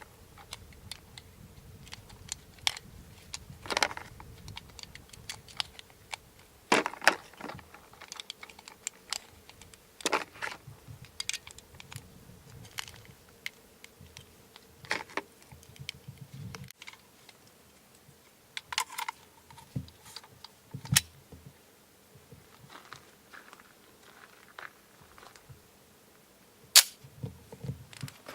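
Scattered sharp mechanical clicks and clacks at irregular spacing, from a CZ 75 B 9mm pistol being handled, with one louder snap near the end.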